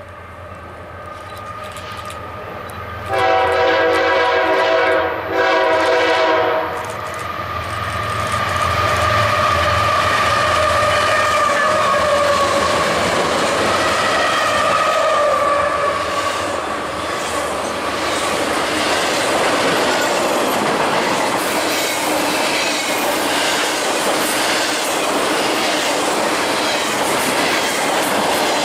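A diesel-hauled train approaches and the locomotive sounds its air horn in two blasts, a long one about three seconds in and a shorter one right after. The train then rolls past with loud, steady wheel-on-rail noise and a wavering metallic whine from the wheels.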